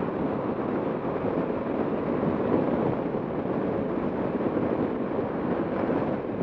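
Steady wind rush over a helmet-mounted camera on a moving motorcycle, with engine and road noise underneath.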